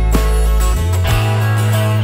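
Electric bass playing long, low held notes, changing pitch about a second in, over a strummed acoustic guitar track with chords struck about once a second.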